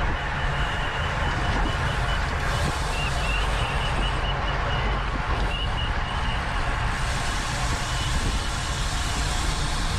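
Wind rushing over the microphone of a camera carried on a racing bicycle at speed: a steady, heavy rumble, with a faint high-pitched tone that keeps coming and going.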